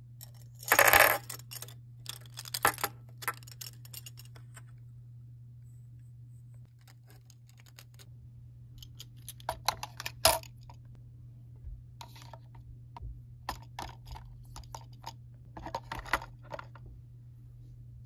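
Makeup brushes clinking and rattling against their gold tube case, loudest about a second in, followed by scattered clicks and taps as makeup items are set into a plastic desk organizer.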